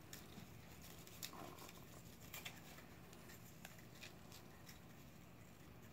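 Faint, irregular clicks and rustles of fingers picking at the string tied around a stack of coasters, trying to undo it; otherwise near silence.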